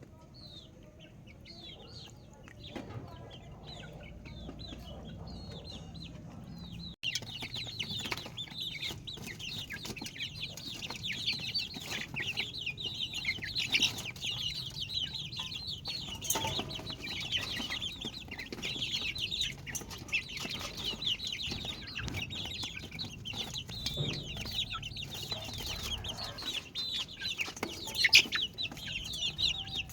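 A brood of chicks peeping, many short high cheeps overlapping; sparse at first, then a dense chorus from about seven seconds in. Scattered light clicks run through it, with one sharp knock near the end.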